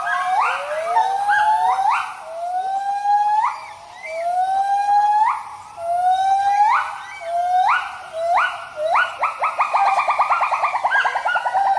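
White-handed gibbons' territorial hooting call, several voices together: a series of loud hoots, each sweeping up steeply in pitch and then held, about one every second and a half, that quickens near the end into a fast trill of short notes.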